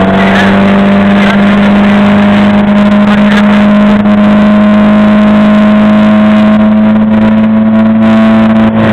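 Motorboat engine running steadily at cruising speed, its note holding an even pitch throughout.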